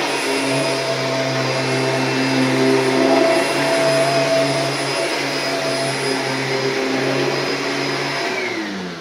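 Kirby G6 upright vacuum cleaner running steadily with a constant-pitched motor hum. Near the end it is switched off, and the pitch slides down as the motor spins down.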